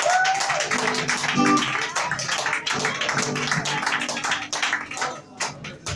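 Live band music with quick, repeated sharp strokes and a few held notes, growing quieter near the end.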